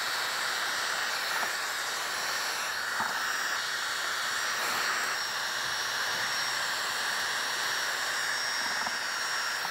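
Electric heat gun running steadily: a rushing blast of hot air with a faint high whine, heating vinyl chrome-delete film so that it softens and molds to the grille's curves.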